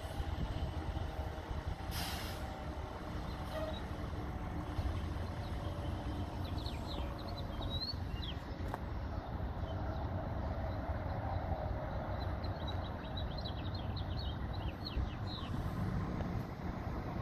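Steady low rumble of a street with a vehicle running in the distance, a short sharp hiss about two seconds in, and small birds chirping through the second half.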